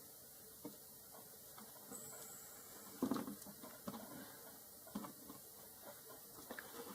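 Faint, scattered clicks and taps of small tools and parts being handled: a precision screwdriver and tiny screws on a smartphone being reassembled.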